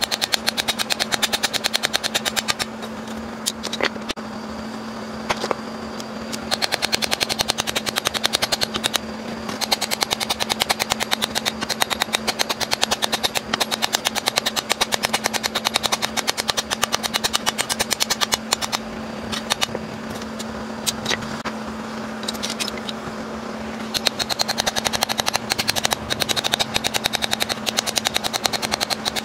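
Steel hoe blade being hammered rapidly on a metal anvil block, many sharp metallic strikes a second, with a few short pauses.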